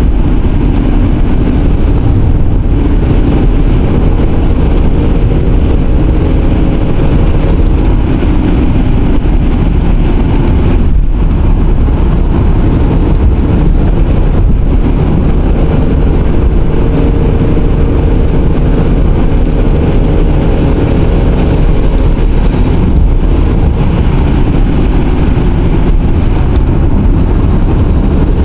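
A car driving along a winding road, heard from inside: a steady, loud low rumble of engine and tyre noise, with a faint engine hum that comes and goes.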